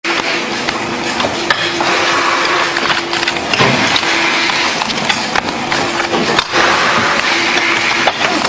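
Playing cards handled very fast by gloved hands: a dense, steady crackle and flutter of card stock, with a faint low hum coming and going underneath.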